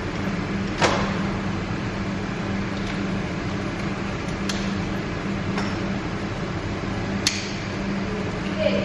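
Baby stroller being folded, its frame and latches giving about five sharp clicks and clacks, the loudest about a second in. A steady low hum runs underneath.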